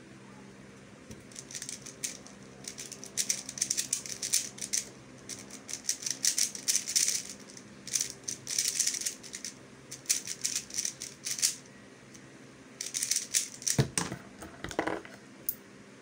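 X-Man Tornado V1 3x3 speed cube being turned fast in a solve: rapid plastic clicking and rattling in quick runs with brief pauses. Near the end come two heavier knocks about a second apart as the cube is set down on the desk.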